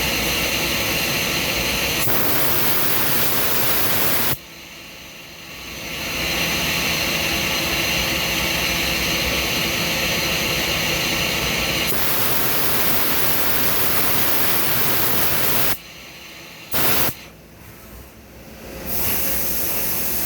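Loud, steady rushing hiss from a machine tool running while beryllium copper is machined. It falls away sharply about four seconds in and builds back over a couple of seconds, then cuts out again near the end, with a short return before it resumes.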